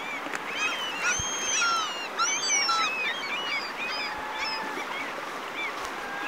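Several gulls crying, many short rising-and-falling calls overlapping, busiest in the first half and thinning out near the end, over the steady rush of a shallow stream.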